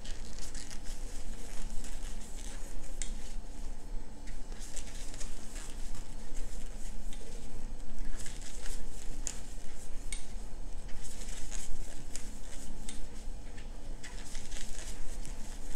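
Thick polyester cord squeaking and rubbing against a plastic crochet hook as single crochet stitches are worked, with many small scratchy clicks as the hook is pushed through and the cord pulled tight.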